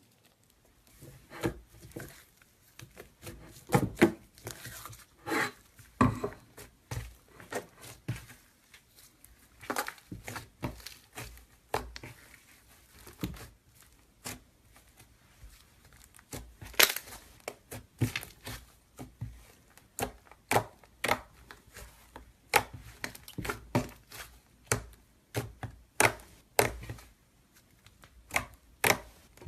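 Slime being pressed and played with by hand, giving irregular sharp crackles and pops, one to a few every second.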